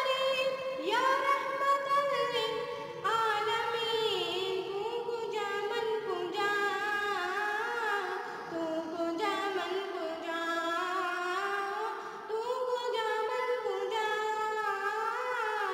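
A young boy singing a naat unaccompanied in a high voice, in several long phrases of held notes with wavering ornaments.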